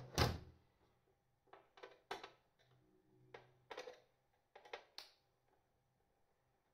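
Hands handling small parts and a screwdriver on a battery-case front panel: a dozen or so short clicks and knocks, the loudest right at the start, with quiet gaps between.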